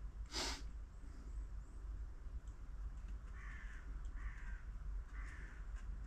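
A brief hiss about half a second in, then three short harsh caws in the second half, typical of a crow calling, over a steady low mains hum.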